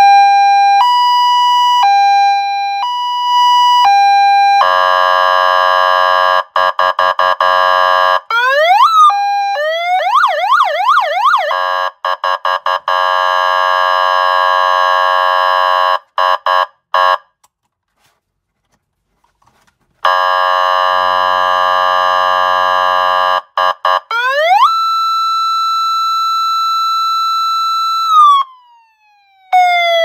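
Electronic police siren (SKU-2087 control box and horn speaker) run through its modes: a two-tone hi-lo alternation, then harsh buzzing horn blasts and short horn stabs, fast yelp sweeps up and down, a pause of about three seconds, more horn, then a wail that rises to a held high tone and slides back down near the end.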